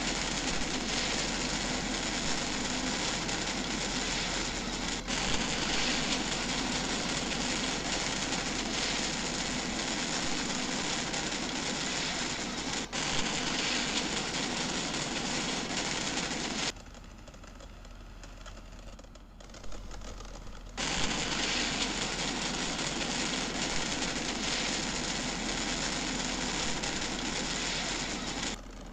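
Steady rush of water, broken by a few abrupt cuts, with a quieter stretch about two-thirds of the way in.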